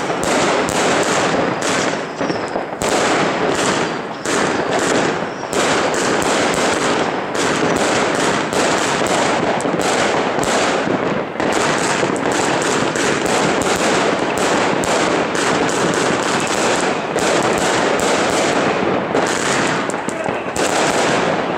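Zena Gold Box 70-shot consumer fireworks cake firing in a continuous barrage: shots and bursts following each other several a second without a pause.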